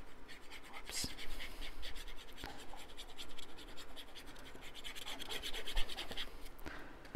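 Fine tip of a squeeze glue bottle scratching across white cardstock in quick, repeated strokes as glue is scribbled onto the paper.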